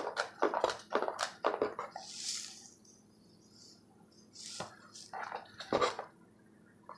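Handling of baseball cards in hard plastic holders: a run of small plastic clicks and rustles, a pause, then another cluster of clicks as the next card is picked up.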